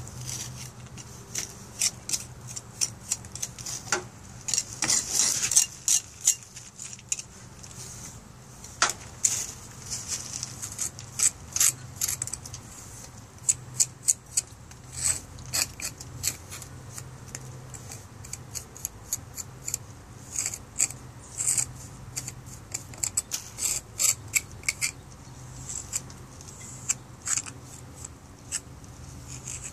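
Irregular sharp clicks and clinks of hard objects knocking together, coming in clusters, over a steady low hum.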